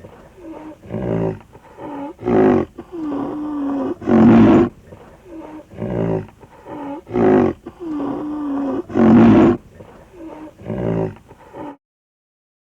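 Rhinoceros grunting: drawn-out grunts at a steady low pitch alternating with short, louder, harsh bursts, repeated several times before cutting off abruptly near the end.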